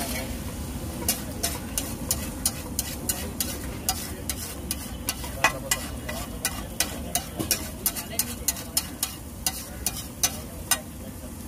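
A metal spatula scrapes and taps about three times a second on a large flat metal griddle (tawa), working a frying egg omelette mixture, over steady sizzling. The tapping stops near the end.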